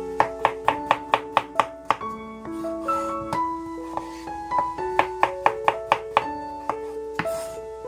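Kitchen knife chopping raw potatoes on a wooden cutting board, with sharp knocks coming in quick runs of several strokes and scattered single cuts, over background piano music.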